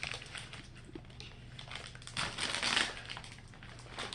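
Plastic packaging crinkling and crackling as it is handled and pulled open, loudest a little past two seconds in.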